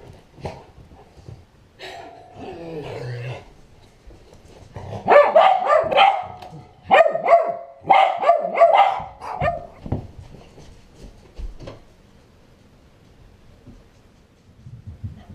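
A bulldog barking at a person who has just startled it: a run of loud, quick barks for about five seconds through the middle, after softer growl-like sounds near the start.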